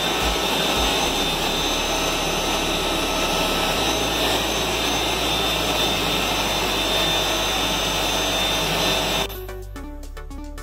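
Loud, steady hum and whine of running plant-room machinery: condenser water pumps and a chiller. About nine seconds in it cuts off suddenly and background music takes over.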